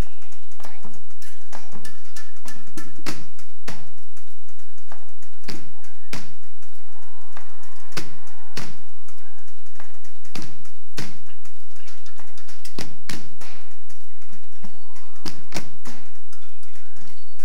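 Found-object percussion played live: orange plastic traffic cones banged on a wooden stage floor, together with plastic barrel drums and a drum kit, in a run of sharp hits at an uneven, driving rhythm.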